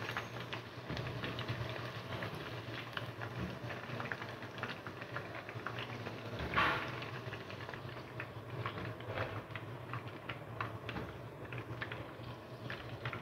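Batter-coated chicken strips deep-frying in hot oil, a steady sizzle full of small crackling pops, as a slotted spoon lifts pieces out. About halfway through comes one brief, louder clatter as fried pieces are moved onto the plate.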